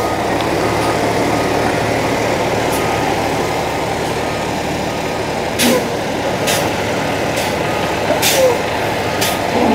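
International WorkStar's diesel engine running steadily. In the second half there are several short air hisses.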